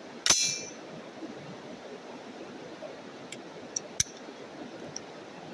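A single shot from a Ruger SFAR .308 semi-automatic rifle about a quarter second in, sharp with a short ringing tail. A few light ticks and one sharper click come around four seconds in, over a steady outdoor hiss.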